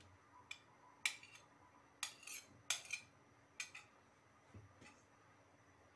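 A china plate clinking lightly against a glass bowl about six times, spaced irregularly, as grapes are tipped off it into custard.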